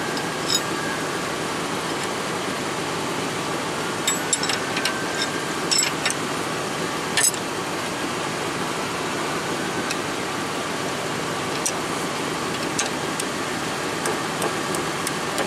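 Light metallic clinks of hand tools on the brake caliper bracket and hub, scattered, with a cluster about four to six seconds in. Under them, a steady mechanical drone runs throughout.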